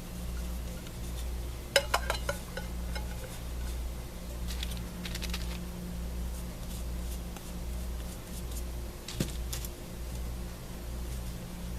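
Light clicks and taps from handling craft supplies on a work table: a quick cluster of clicks about two seconds in, some brief scratchy rustling midway and one more click near the end, over a steady low hum.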